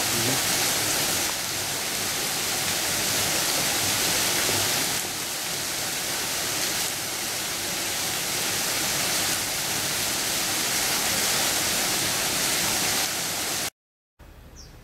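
Steady rushing hiss of water splashing and dripping onto the surface of a pool, cutting off suddenly near the end.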